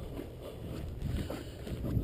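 Wind rumbling on the microphone outdoors, with faint rustling.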